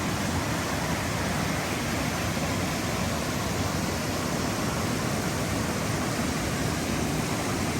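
Steady rushing of river water running over rapids, an even hiss that holds without change.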